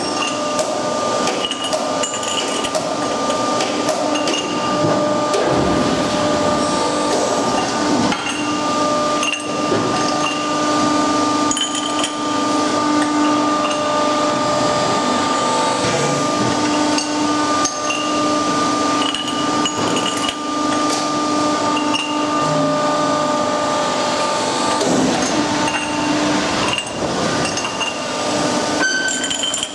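Metalworking machinery running with a steady humming tone, over frequent sharp metal clanks and clinks of steel parts being struck and handled.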